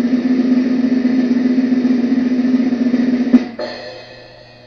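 Drum roll sound effect played back by the app: a steady snare drum roll that ends, about three and a half seconds in, with one final hit that rings out and fades away.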